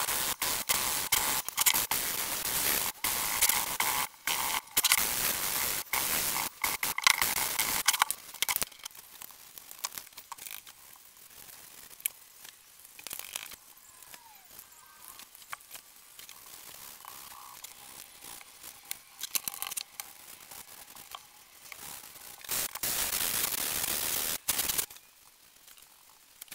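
Sanding sponge rubbing over a painted MDF pedestal in rapid back-and-forth strokes: a scratchy rasping broken by short pauses for the first eight seconds or so. Quieter clicks and scrapes of small parts being handled follow, then another spell of steady scratchy noise about two seconds long near the end.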